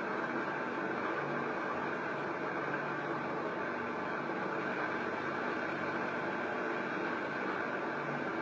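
A steady mechanical hum with a hiss over it, unchanging in level.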